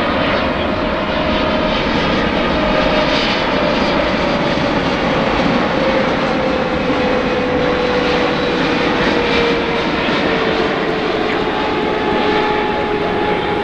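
Boeing 777-300ER's twin General Electric GE90-115B turbofans running at approach power on final approach, gear down: a steady loud jet roar with a whine that falls slowly in pitch as the airliner passes.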